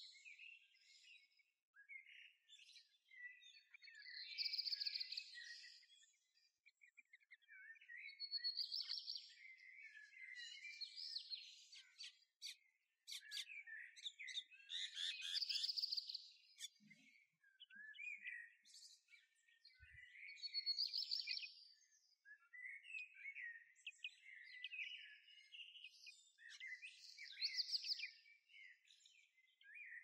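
Small songbirds singing and chirping: a loud song phrase recurs about every five to six seconds, with softer chirps and twitters in between.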